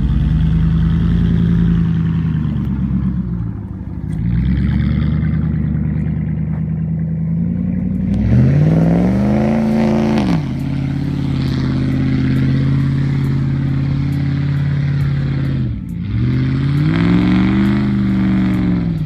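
Pickup truck's Hemi V8 revved hard while doing donuts in a muddy field, the engine note climbing and falling in long swells, twice dropping away briefly as the throttle is lifted.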